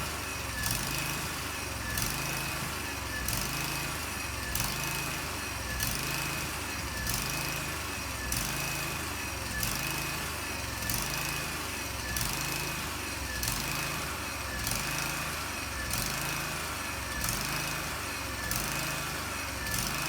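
A small engine-driven machine running steadily, with a regular pulse about every second and a quarter.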